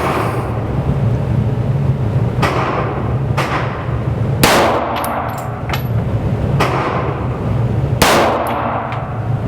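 9mm pistol shots from a Springfield XD-S single-stack, sharp reports ringing off the walls of an indoor range: loud shots at the start, about halfway and near the end, with fainter shots between them. A steady low hum runs underneath.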